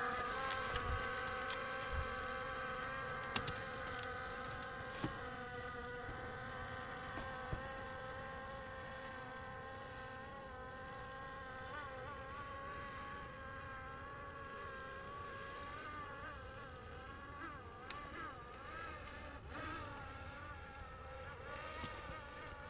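Off-road vehicle's engine droning steadily and slowly fading, with a few faint knocks early on; its pitch starts to waver about halfway through.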